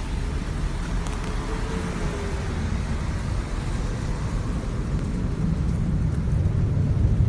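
Steady city street noise on a rainy day: a low rumble of traffic under an even hiss.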